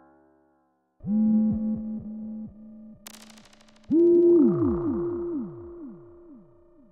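Synthesizer tones from an interactive plant installation, in which touching the plant drives the sound. There are two phrases, starting about a second in and about four seconds in, each a stack of tones that slide downward in pitch and die away. A brief crackle comes near the three-second mark.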